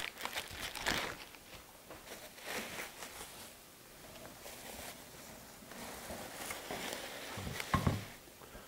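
Plastic bubble-wrap packing crinkling and rustling as it is handled and pulled about in a cardboard box, with a knock near the end as a wooden part is lifted out.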